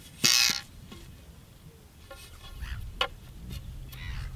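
Kite frame rods clattering and clicking against each other as they are picked up and handled: a short loud rattle just after the start, softer scrapes, and one sharp click about three seconds in.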